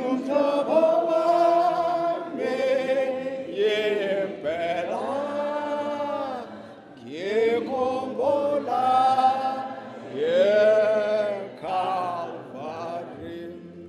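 Congregation singing a hymn unaccompanied, in slow held notes with short breaks between phrases.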